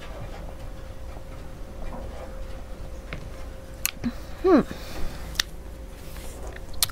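Quiet drinking and swallowing from a glass mug, with faint mouth ticks. Just before four seconds in the glass mug is set down with a sharp knock, followed by a brief vocal sound falling in pitch and a couple of light clicks.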